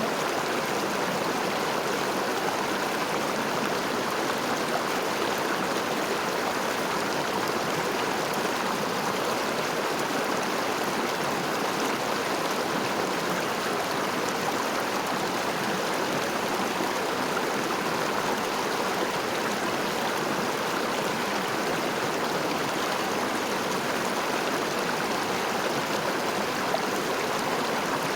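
River water flowing: a steady, even rushing of running water with no breaks or changes.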